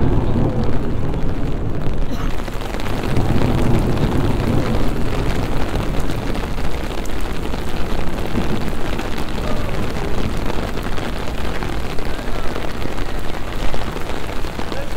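Thunder rumbling low in two long swells over the first few seconds while heavy rain starts to pour, its hiss on the wet pavements filling in about two seconds in and holding steady.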